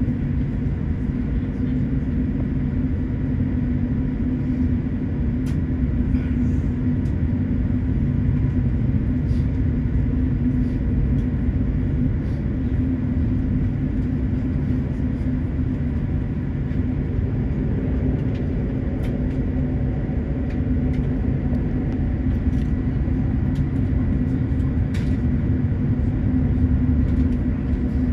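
Steady low rumble and constant hum inside an airliner cabin on the ground near the gate, from the idling jet engines and the cabin air system, with a few faint clicks.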